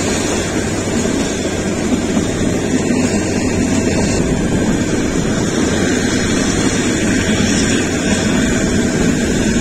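Narrow-gauge passenger train running along the track: a steady, loud rumble with no breaks.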